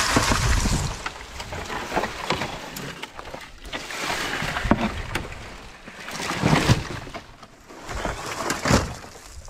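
Dry grass and brush rustling and crunching, with scrapes and sharp knocks as layered corrugated metal roofing sheets are lifted and handled with a snake hook; footsteps through the dry vegetation near the end.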